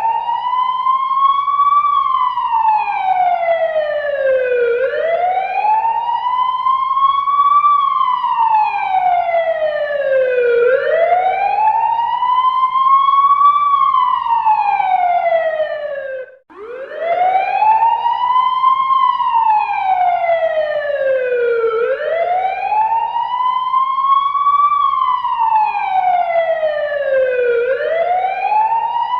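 Fire truck siren wailing, rising and falling slowly in pitch about once every six seconds. It cuts out for a moment about halfway through and starts again.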